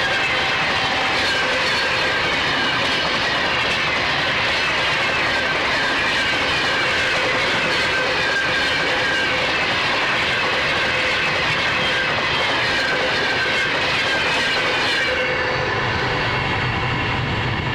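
LHB passenger coaches of an express train passing at about 110 km/h: steady wheel-and-rail noise with clickety-clack and high wheel tones that fall in pitch over and over. About fifteen seconds in, the hiss thins out to a lower rumble.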